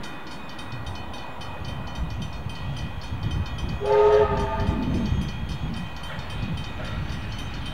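Steam locomotive Ww 644 working hard toward the listener, its exhaust beating and its train rumbling on the rails. About four seconds in it gives one short blast on its chime whistle.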